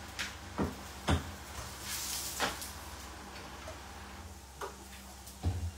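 Scattered light clicks and knocks of dishes and kitchen items being handled on a countertop, about half a dozen spread through, over a steady low hum.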